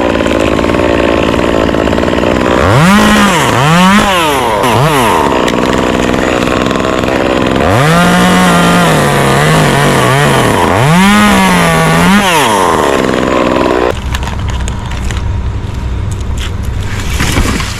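Echo CS-2511 top-handle two-stroke chainsaw revving up and down several times and cutting wood, its pitch dropping under load in a longer cut. About fourteen seconds in the revving stops and the saw drops to a lower, quieter idle, with a few knocks near the end.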